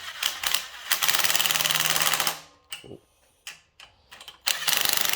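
Impact wrench hammering steering stem bolts snug in two bursts of fast, even rattling, each about a second and a half long, with a few clicks before and between them.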